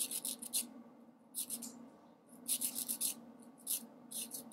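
Nail file rasping back and forth over a UV-gel-coated fingernail in quick short strokes, several strokes a second, in four or five bursts with brief pauses between them, shaping the side of the nail.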